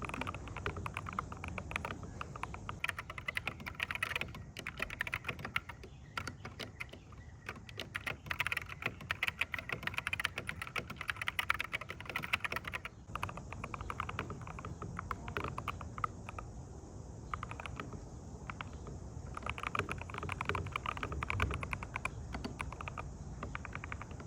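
Typing on the modded Ractous RTK61BP 60% keyboard with lubed optical switches, a tape-modded PCB and a case filled with foam and hot glue: dense runs of keystroke clicks broken by short pauses.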